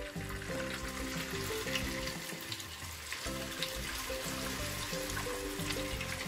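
Noodle-wrapped sausages deep-frying in a small pot of hot oil: a steady sizzle with scattered small pops.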